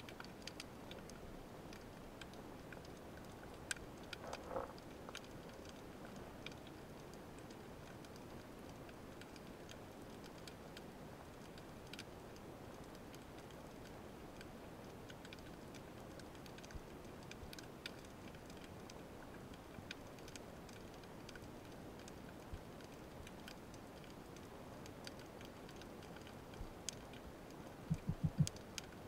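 Faint underwater ambience picked up through a camera's waterproof housing: a steady low hiss with scattered sharp clicks, and a short cluster of low thumps near the end.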